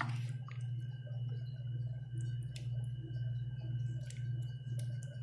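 Thick béchamel sauce being ladled over eggplant slices in a baking dish: soft squishing with a few faint ticks from the ladle, over a steady low hum.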